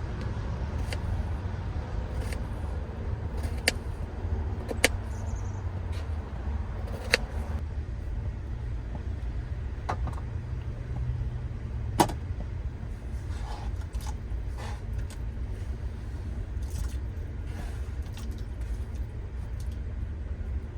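A few sharp clicks and knocks from potatoes and utensils being handled at a cooking pot, over a steady low hum.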